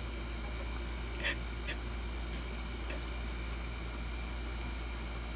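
Quiet eating sounds: a fork working through a plate of spaghetti, with a couple of light clicks a little after a second in, and chewing, over a steady low hum.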